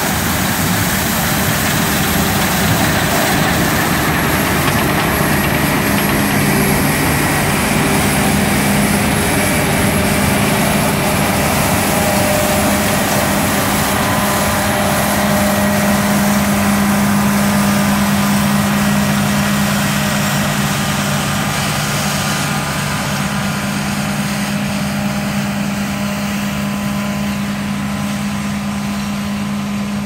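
Claas Lexion 770 combine harvester running as it harvests, with a steady engine hum over a constant mechanical rush. The hum grows louder as the combine passes close by around the middle and eases as it moves away near the end.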